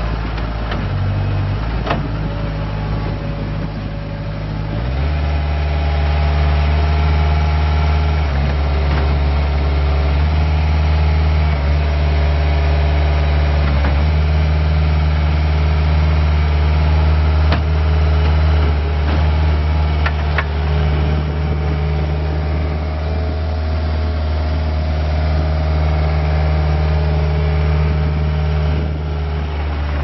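Bobcat S175 skid steer's Kubota four-cylinder diesel running. It steps up from a lower speed to a steady higher rpm about five seconds in as the machine drives and works its bucket, then settles back down near the end, with a few light knocks along the way.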